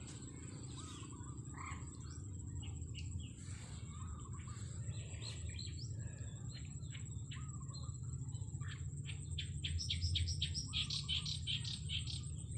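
Small birds chirping and calling, ending in a quick run of short chirps, about four a second, from about two-thirds of the way in. A thin steady high whine and a low rumble sit underneath.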